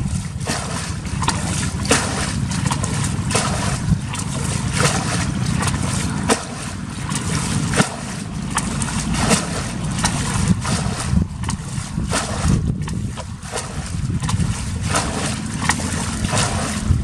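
Shallow muddy water splashing and sloshing again and again as a plastic bucket scoops it up and throws it out, roughly once a second, over a steady low rumble of wind on the microphone.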